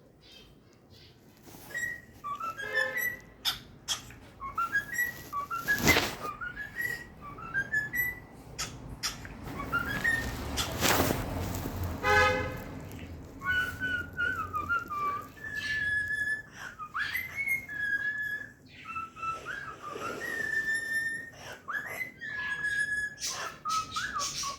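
Cockatiel whistling: a run of short rising whistled notes, then longer held notes with small wavers in pitch.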